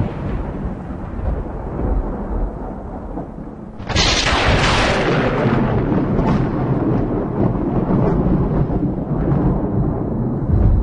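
Thunder: a low rumble fades for the first few seconds, then a sharp thunderclap breaks about four seconds in and rolls on as a long low rumble with scattered cracks.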